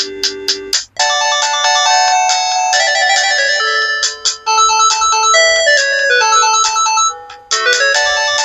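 Sanex SC-7090i mobile phone playing polyphonic ringtones on its CMX sound synthesizer through its loudspeaker. A tune with clicking percussion and a held low note ends about a second in. A new multi-note melody then starts, stops briefly about seven seconds in, and starts over.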